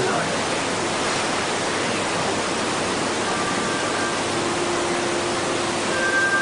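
Steady, even background hiss, with faint thin tones coming and going in the second half.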